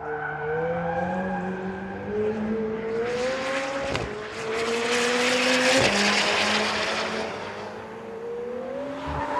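McLaren 720S's twin-turbo V8 under way, its engine note climbing and easing, with two brief breaks in the sound about four and six seconds in.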